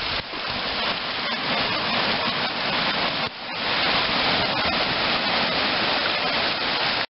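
Surf washing in over a rocky cobble shore in heavy rain, a steady rushing hiss. The rush drops for a moment about halfway through and then swells back up.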